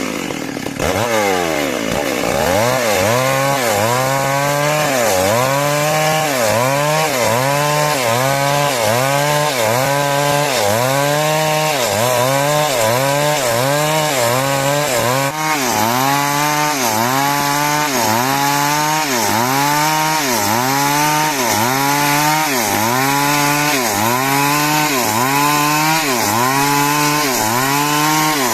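Chainsaw cutting timber. Its engine pitch sags under load and picks up again about once a second in a steady rhythm, after a sharp drop in speed at the start.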